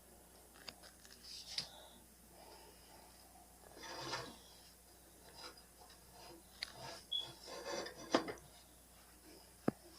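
Quiet, irregular scraping and rubbing with a few sharp little knocks, from the freshly baked loaf being handled and worked in its baking pan.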